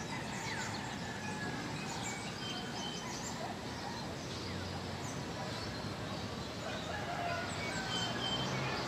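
Steady outdoor background noise with many short bird chirps and calls scattered throughout.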